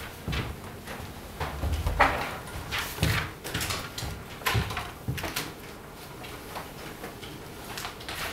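Scattered knocks and rustles around a chalkboard, with a board eraser being put down on the chalk ledge; the loudest knock comes about two seconds in.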